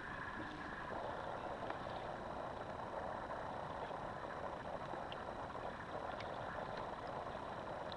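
Steady, even outdoor background noise over open water with a few faint ticks; no distinct event stands out.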